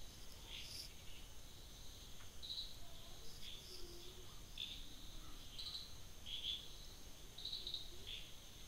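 Faint outdoor chirping, short high chirps about once a second over a steady thin high-pitched tone and low background hiss.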